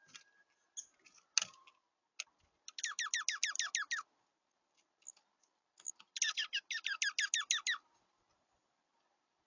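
A small bird gives two rapid trills, each a quick run of about a dozen high notes that sweep downward, the second starting a couple of seconds after the first. Scattered light clicks are heard between them.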